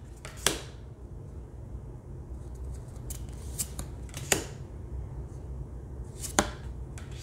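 Stiff oracle cards being handled one at a time as the deck is flipped through, giving several sharp papery snaps and slides a second or more apart.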